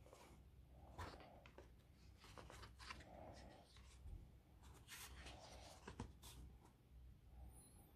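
Faint paper rustling and soft clicks as a paperback book is opened and its pages are handled.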